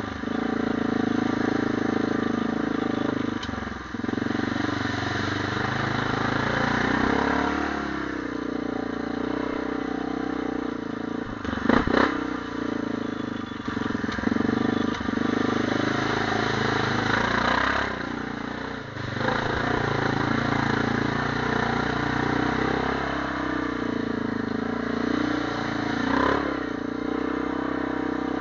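ATV engine running under changing throttle, its pitch rising and falling as it revs and eases off. Clatter and knocks from the machine jolting over the rough trail, the loudest cluster about twelve seconds in.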